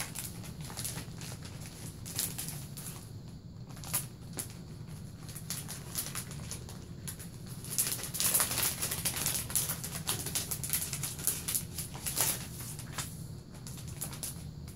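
Clear plastic sleeves crinkling and rustling as paper prop banknotes are slid out and handled, busiest about eight seconds in, over a steady low hum.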